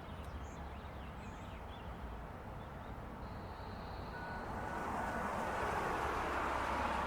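Federal Signal Modulator 6048 storm siren starting up about four seconds in, faint at first and growing steadily louder. Before that there is only a low background hum with a few faint bird chirps.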